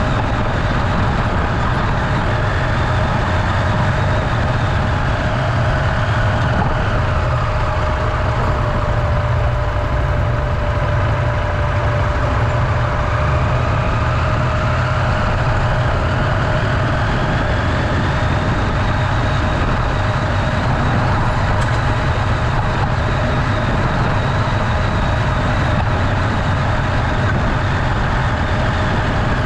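Motorcycle engine running steadily while riding, with wind and road noise; the engine note dips and climbs slowly as the speed changes.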